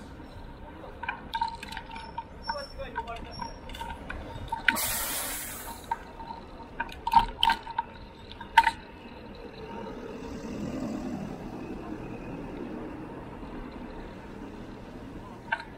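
Street ride noise picked up by a bicycle-mounted action camera: scattered sharp rattles and clicks, a burst of hiss about five seconds in, and a low rumble swelling and fading around ten seconds in.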